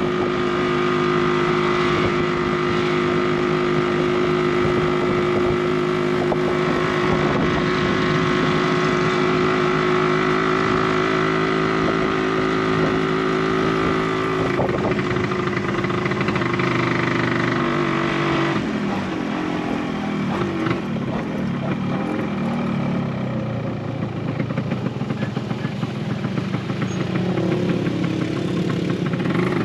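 Tuk-tuk's small engine running under way, with road noise. The engine note holds steady for about half the time, shifts in pitch twice around the middle, and then wavers up and down.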